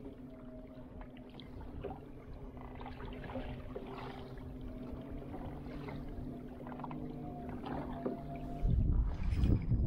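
Pedal-drive kayak under way: the pedal drive's gears and propeller give a steady whirring drone, with small clicks and a slight rise in pitch as the pedalling goes on. Near the end, a sudden louder burst of knocking and handling noise comes in.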